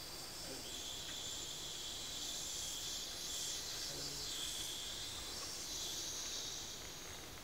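Improvised sound poetry: a long, high, breathy hiss made with the mouth, shifting in pitch and shape as it goes.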